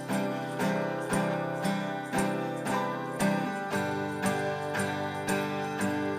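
Instrumental music: guitar chords struck about twice a second and left to ring, the chord changing a little past halfway.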